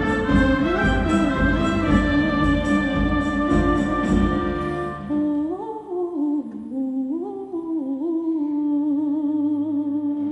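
Live chamber ensemble of strings, winds, double basses and timpani playing: for about five seconds a full texture with a steady pulse, then it thins to a held low note under a slow melodic line with vibrato.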